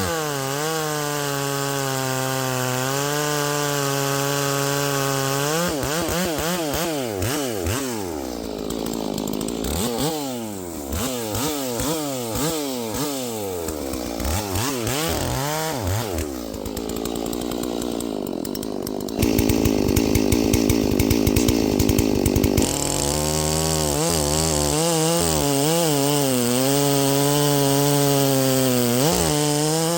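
Husqvarna chainsaw running at high revs while bucking a large cherry log. The engine pitch sags and recovers as the chain bogs in the cut, swoops up and down in the middle, and turns louder and harsher for a few seconds about two-thirds of the way through.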